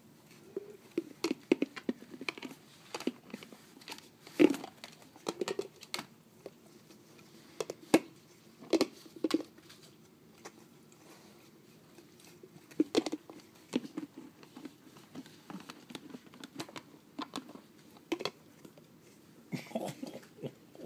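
Chocolate Lab / Weimaraner mix licking out a large plastic peanut butter jar with his tongue inside it: irregular wet smacks and slurps, with knocks and crinkles of the plastic jar. The loudest smack comes about four and a half seconds in.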